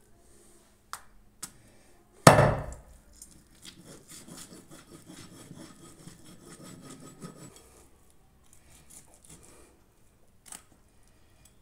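A broad butcher's knife strikes the wooden chopping board once, hard, about two seconds in, then scrapes and saws through goat-head meat against the wood for several seconds. A few light taps of the blade on the board come before and after.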